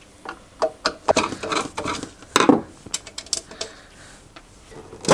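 A quick run of small clicks and clinks from a screwdriver, loose screws and the plastic case of a UPS being handled, then after a short pause one sharper click near the end.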